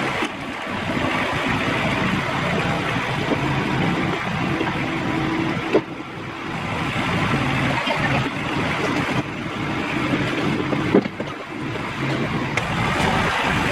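Kubota compact tractor's diesel engine running steadily under load while dragging a box blade over rough dirt. A sharp knock comes about halfway through and another about three-quarters of the way through.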